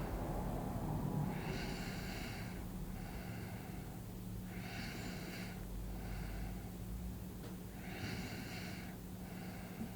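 A sleeping person breathing slowly and audibly, one breath about every three seconds, over a steady low hum.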